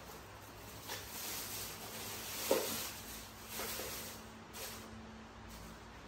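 Soft rustling of a plastic bag being handled, in a few swells, with a few light taps and clicks.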